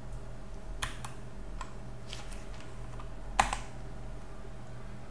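Computer keyboard: a few scattered key presses, the loudest about three and a half seconds in, over a faint steady hum.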